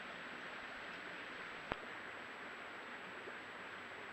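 Steady hiss of a trail camera's outdoor night recording, with a faint high steady tone running under it. One short sharp click about a second and a half in.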